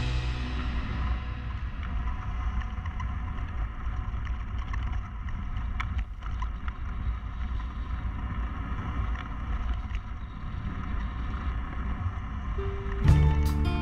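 Steady low wind rumble buffeting the microphone, with faint steady tones above it. Music with drums comes back in near the end.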